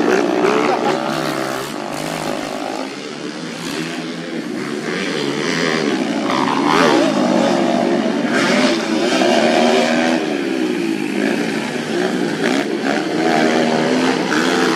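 Several motorcycle engines revving hard on a dirt track, overlapping one another, their pitch climbing and dropping as the riders accelerate and back off.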